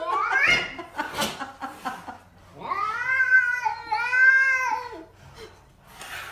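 Domestic cat giving a defensive growl. It makes long, wavering yowls: one rises at the start, and a second, drawn out for about two seconds, comes near the middle.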